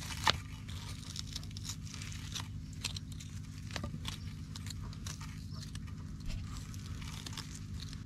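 Knife scraping the charred, singed skin off a piece of sheep on a wooden board: irregular crunchy scraping strokes, the loudest just after the start.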